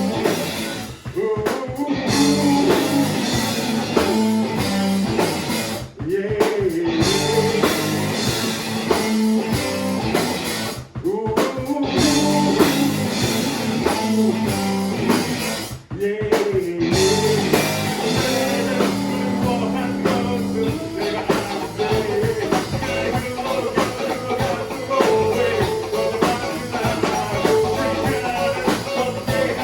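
Rock band playing the song: electric guitar and drum kit with singing, with brief stops roughly every five seconds in the first half.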